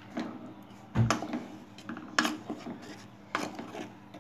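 Wooden spatula stirring boiled eggs through thick masala gravy in a pan, knocking against the pan three times about a second apart, with light scraping between the knocks.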